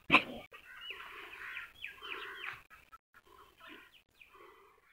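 Small birds chirping and twittering, quick short gliding calls that thin out after a few seconds. Right at the start there is one brief loud cry.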